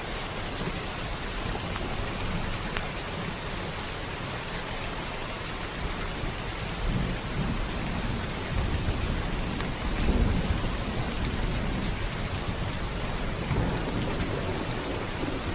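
Steady heavy rain drumming on a roof, with rolling thunder rumbling low several times; the loudest rumble comes about ten seconds in.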